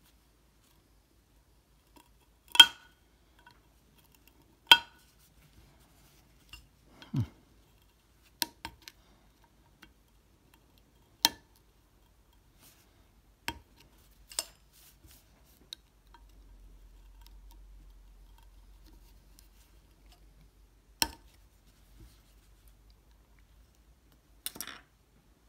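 Irregular sharp metallic clicks and clinks, about ten of them a few seconds apart, of a pick and small hand tools against a vintage 1950s Airguide marine speedometer as its outer ring is pried up and off.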